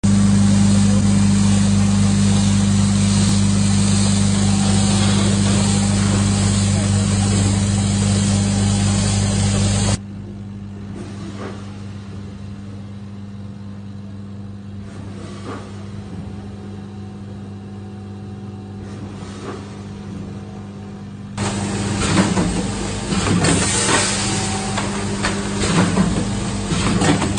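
Vertical form-fill-seal coffee bean packing machine with a four-head linear weigher running: a loud steady machine hum at first, a quieter stretch from about a third of the way in with a few light ticks, then repeated sharp hisses and clacks about once a second as the bag-forming and sealing section cycles.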